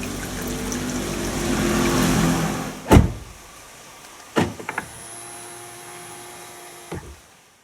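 Car running noise, then a door shutting with a loud thud about three seconds in. A few clicks follow, then an electric motor whirs steadily for about two and a half seconds, like a power window or mirror, and stops with a click near the end.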